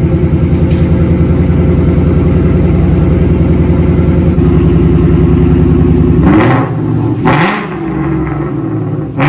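2018 Mustang GT's 5.0 L V8, breathing through freshly installed catless long tube headers and new mufflers, idling with a steady pulsing lope, then blipped twice near the end with quick rises and falls in pitch, with a third blip starting at the very end.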